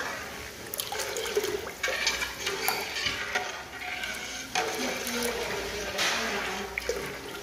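Sorbitol being stirred into water by hand in a steel pot, dissolving it for a sugar-alcohol coating syrup: sloshing swishes about once a second, with a few clicks of the spoon against the pot.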